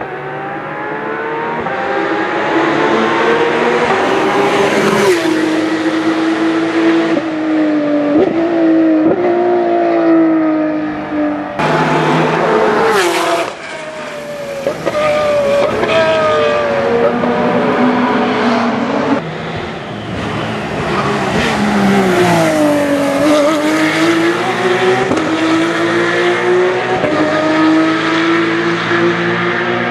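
Loud Porsche 997 GT3 Cup race cars' 3.6-litre flat-six engines at full throttle on track, pitch climbing as they pull through the gears and dropping at shifts and under braking. Several separate passes, with abrupt changes where one pass gives way to the next.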